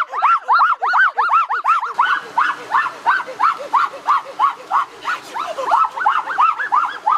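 An animal crying out in a rapid series of short, high yelps, about three or four a second, slightly softer after the first two seconds.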